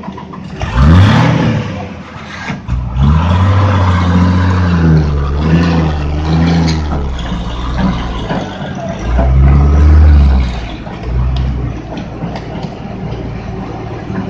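Heavily loaded truck's diesel engine revving hard as it labours through deep, sucking mud while an excavator pushes it from behind. The revs climb quickly about a second in, are held high for several seconds, surge again near the two-thirds mark, then drop back as the truck gets moving.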